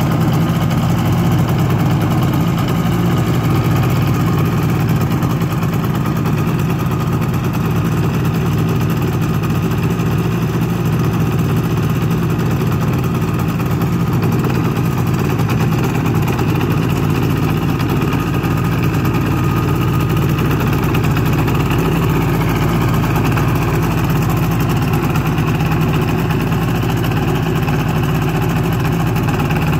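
Rotax 462 UL liquid-cooled two-stroke twin on a paramotor trike, running at a steady speed and turning a 160 cm Kievprop propeller, with no revving up or down.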